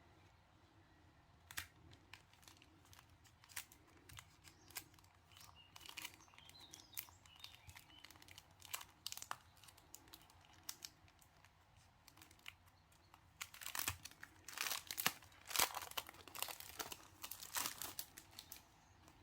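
Packaging crinkling and rustling as stationery items are unwrapped and handled. It comes as scattered sharp crackles that grow much denser about two-thirds of the way through.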